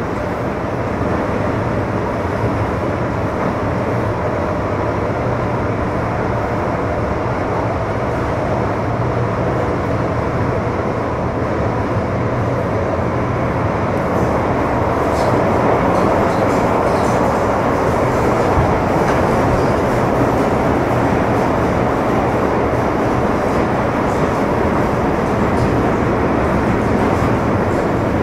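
Running noise heard from inside an MTR Metro Cammell M-Train (C250 I-Stock) electric multiple unit as it travels through an underground tunnel: a steady rumble of wheels on rail. It grows a little louder about halfway, with faint clicks.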